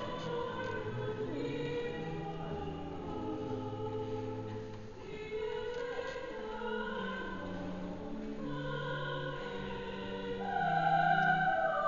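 A group of voices singing a slow piece in harmony, holding long notes, swelling louder near the end.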